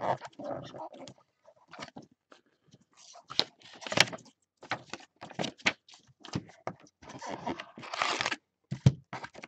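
Cardboard trading-card hobby box being opened by hand: the lid scraping off, then inner paper packaging pulled out and torn, with irregular rustling and crinkling and a couple of sharp crackles about three and four seconds in.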